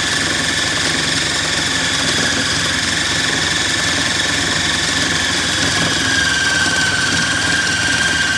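Electric food processor motor running at speed, kneading dal and multigrain flour into dough. A steady high whine sits over the motor noise and sags slightly in pitch after about six seconds.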